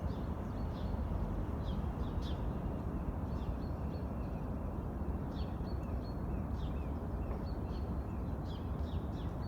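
A steady, low, droning hum of unexplained origin that the recordist says is not thunder and not road traffic, with small birds chirping over it again and again.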